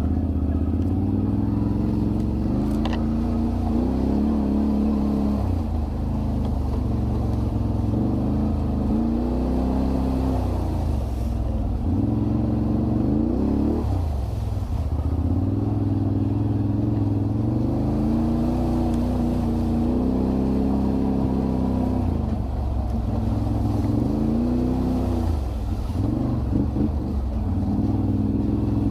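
Off-road quad bike and side-by-side engines revving up and down in repeated rising and falling swells as they crawl over rough, rutted ground.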